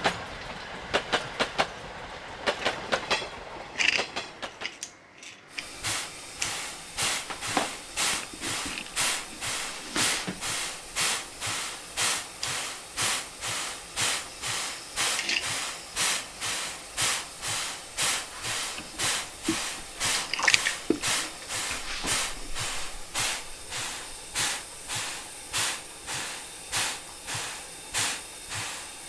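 Steam locomotive chuffing: an even run of hissing puffs, about three every two seconds, that sets in about six seconds in. Before it, light rapid clicking from a small toy train running on plastic track.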